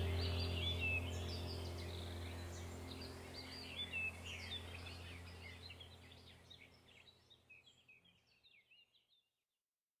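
Small birds chirping and singing over a low, steady drone, both fading out to silence about seven seconds in.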